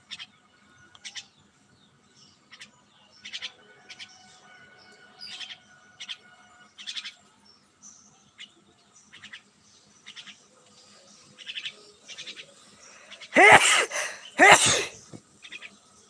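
Myna calling: short chirps repeat about once a second, then two loud, harsh calls come near the end.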